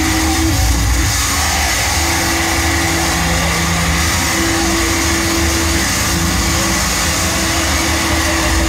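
Live harsh noise music: a loud, steady wall of electronic noise with a heavy low rumble. A few held pitches come and go on top, each lasting about a second.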